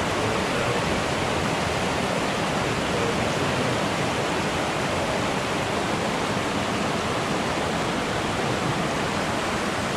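Small mountain stream running over rocks close by: a steady, even rush of water.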